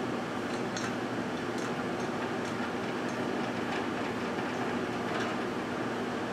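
GE Dual Wave microwave oven running: a steady electrical hum with fan noise, and faint irregular ticks throughout.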